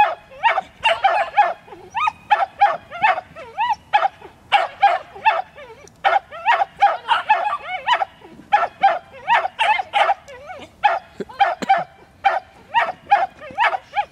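A dog barking repeatedly as it runs, about three high-pitched barks a second with a few short breaks.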